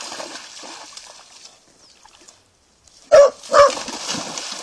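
A dog barks twice in quick succession about three seconds in, loud and close, with dogs splashing through shallow stream water before and after the barks.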